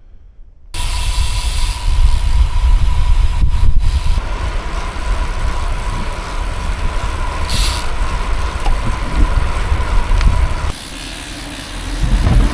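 Wind rushing over the microphone and road noise from a bicycle riding at speed, a loud, steady rumble that starts abruptly about a second in, with a faint steady whine. It drops sharply near the end, then swells again.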